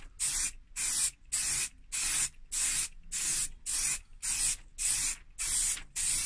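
Aerosol spray can of primer hissing in short bursts, about two a second, the nozzle pressed and released for each stroke.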